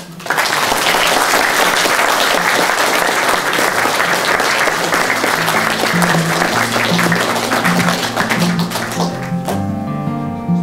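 Audience applauding loudly. Guitar music comes in partway through and takes over near the end as the clapping dies away.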